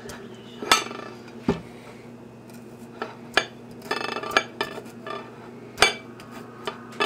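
A fork stabbing a potato on a plate, its tines clinking against the plate: a handful of separate sharp strikes with a quick rattling run of them about four seconds in.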